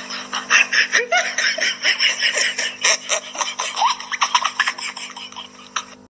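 Stifled giggling close to the microphone, in many quick breathy bursts with a few squeaky rises in pitch, dying down near the end.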